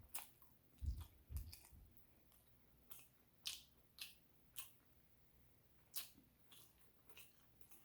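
Quiet, wet chewing of soft beef meatballs and spaghetti noodles, with irregular sharp mouth clicks. There are two dull low knocks about a second in.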